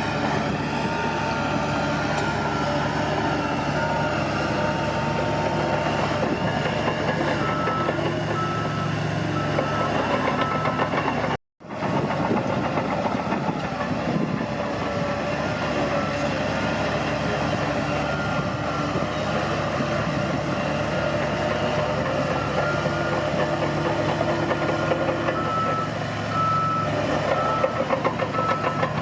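Bulldozer's diesel engine running steadily, with a reversing alarm beeping in an even, repeating pattern over it. The sound cuts out for an instant about a third of the way through.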